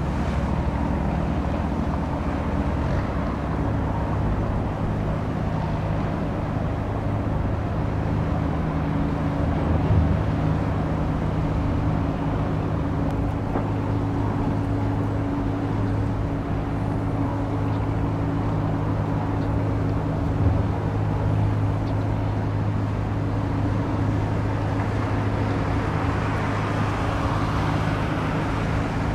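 Steady low drone of a passing limestone carrier's diesel engine, a hum of several constant low tones over a rushing background, with two brief low bumps along the way and a rushing noise that swells near the end.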